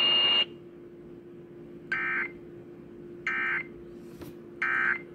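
Weather radio hiss with a steady tone that cuts off about half a second in, then three short bursts of digital data tones about 1.4 s apart: the SAME end-of-message code that closes a NOAA Weather Radio warning broadcast. A faint steady hum runs underneath.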